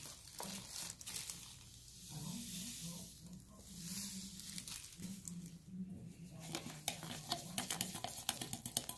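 Damp sand, cornstarch and dish-soap mixture being stirred in a bowl as it thickens toward kinetic sand: soft gritty scraping with many small clicks, more frequent near the end.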